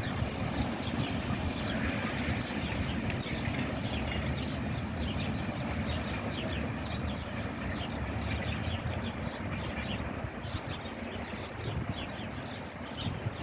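Freight train of Eas and Eanos wagons behind an HŽ 1141 electric locomotive, running with a steady low rumble that slowly fades toward the end. Small birds chirp over it throughout.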